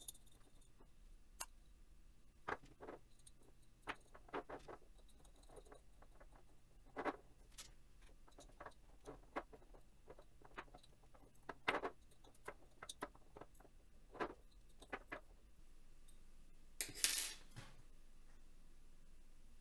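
Faint, irregular clicks and taps from a hex key and a 3D-printed plastic tube part being handled while a set screw is turned into the side of the part. There is a short scraping rustle near the end.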